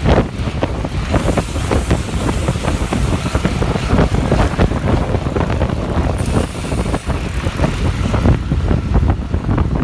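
Wind buffeting the microphone while riding a bicycle: a loud, gusty rumble with no steady tone.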